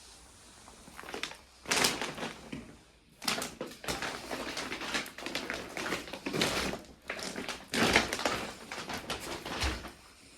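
Slow footsteps crunching over debris, each step a cluster of crackling crunches.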